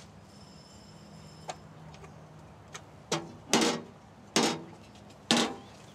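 A doorbell ringing faintly for about a second, then a few sharp thuds about a second apart.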